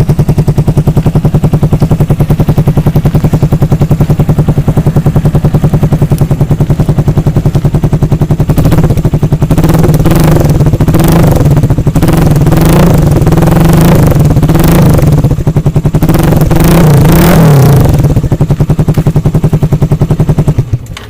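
Suzuki Raider 150's single-cylinder four-stroke engine running loud through an Akrapovic-style slip-on muffler with its silencer insert and silencer cover fitted: a fast steady idle pulse, then the throttle blipped in repeated revs from about 8 s to 18 s, and the sound drops suddenly right at the end.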